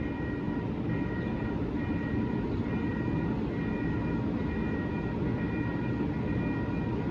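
Siemens SD160 light rail train running steadily as it pulls out of the station, with faint high tones that come and go every second or so.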